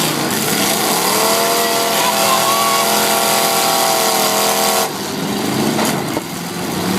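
Demolition derby car engine revving up and held at high revs over the din of the arena, cutting off abruptly about five seconds in.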